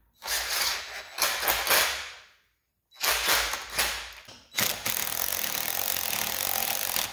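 DeWalt cordless impact driver running bolts into the transfer case seam. There are two short runs in the first couple of seconds, another after a brief pause, then a longer steady run of about three seconds near the end.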